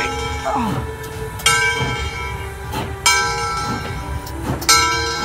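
Southern Railway 630's locomotive bell ringing with a clang about every second and a half, four times, over the low rumble of the steam locomotive moving past with its train.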